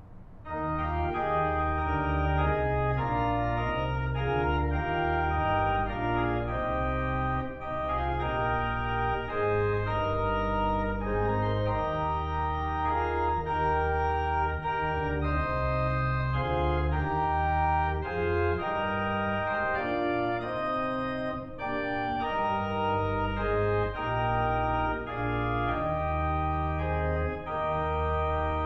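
Organ playing slow, full chords over a low pedal bass, the notes changing about every half second to a second.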